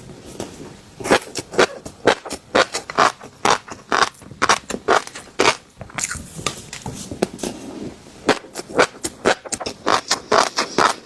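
Fish roe crackling and popping close to the microphone: irregular sharp clicks, several a second, with a quieter stretch just past the middle.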